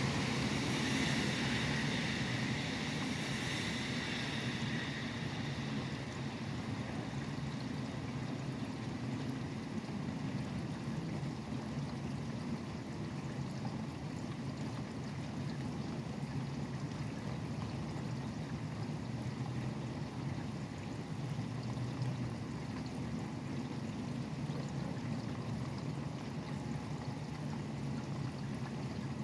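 Steady rain falling, mixed with the low rumble of highway traffic; in the first few seconds a vehicle's tyres hiss past on the wet road and fade away.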